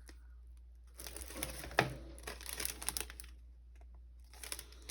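Small plastic bags of diamond-painting drills crinkling as they are handled, with light clicks. The sound comes in a stretch from about a second in to about three seconds, then again briefly near the end.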